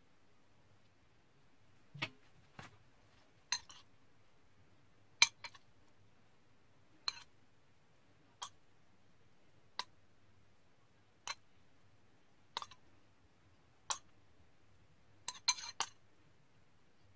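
Metal spoon clinking against china as scallion oil is scooped from a small bowl and spooned onto a plate: about a dozen short, sharp taps, roughly one every second or so, with a quick cluster of three near the end.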